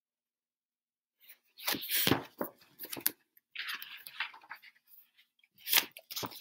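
Pages of a picture book being turned and handled: a few quick bursts of paper rustling and one longer papery slide, starting about a second and a half in.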